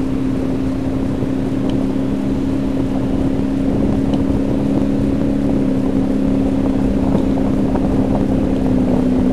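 Boat motor running steadily, a constant low two-tone hum over a low rumble.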